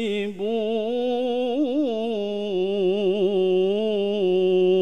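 A man reciting the Qur'an in the melodic tilawah style, drawing out one long vowel and bending it through quick ornamental turns, then settling onto a lower, steady held note about four seconds in.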